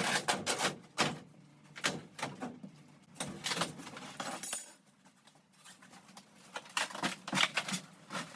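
Irregular clatter of knocks, clicks and rattles from hard pieces being pulled loose and handled while a caravan interior is being torn out, with a brief scrape about four seconds in.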